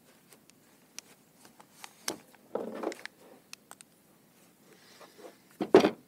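Steel hydraulic cylinder parts being handled on a pickup tailgate: scattered light clicks, a short scraping rustle about two and a half seconds in, and a louder double clunk near the end as a part is set down.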